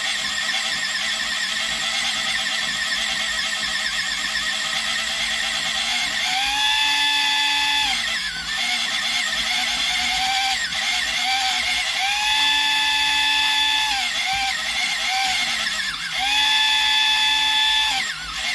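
A small electric pencil sharpener's motor whines steadily, grinding a coloured pencil. Its pitch sags several times as the pencil is pressed in and loads the motor, and climbs back to a steady whine in between.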